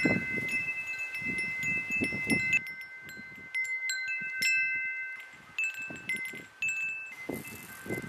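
Wind chime ringing in the breeze: a few clear high tones struck at irregular moments, each left to ring for a second or more. A low rumble of wind noise runs underneath.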